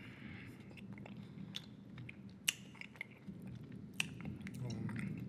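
Bubble gum being chewed close to the microphone: wet mouth sounds with scattered sharp clicks, two of them louder, about two and a half and four seconds in.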